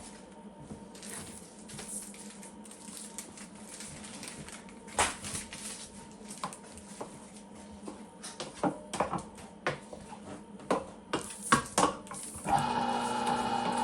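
Scattered clicks, clanks and knocks of kitchen utensils and trays being handled, then, about a second before the end, an electric motor switches on and runs with a steady hum.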